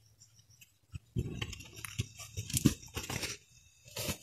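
Irregular rustling and crackling, with sharp clicks, starting about a second in.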